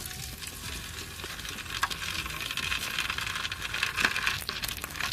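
Prawn crackers sizzling and crackling as they deep-fry in hot oil, with many small pops. The sizzle grows busier about two seconds in.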